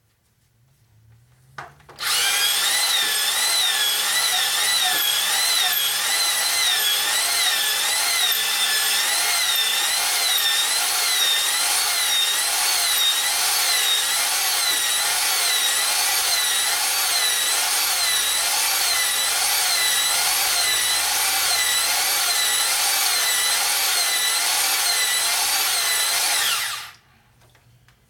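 Electric drill spinning a stone cylinder hone inside a bore of a Ford four-cylinder flathead block, starting about two seconds in and stopping suddenly near the end. Its motor whine wavers up and down in pitch in a steady rhythm. The stones are honing out taper in the cast-iron bore.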